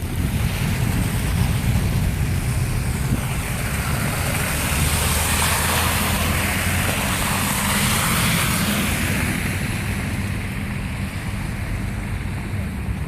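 Blizzard wind buffeting the microphone with a steady low rumble, and a broad hiss that swells and fades in the middle.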